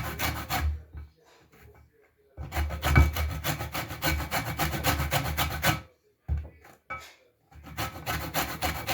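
Lemon peel being grated on a hand grater for zest: quick rasping strokes in runs of a few seconds, with short pauses between runs.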